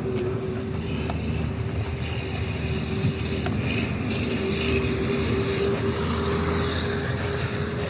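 Car running at a steady pace: a continuous low engine and road rumble with a steady humming tone over it.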